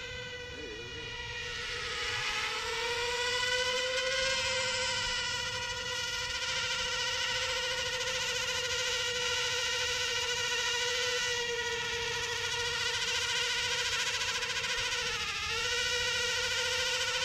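Homemade quadcopter drone hovering overhead: a steady whine from its motors and propellers. The pitch dips and comes back up about two seconds in and again near the end as the rotor speed changes.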